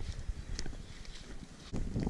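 Footsteps and brushing through dry forest undergrowth, with a few small twig clicks and a low wind rumble on the microphone that grows louder near the end.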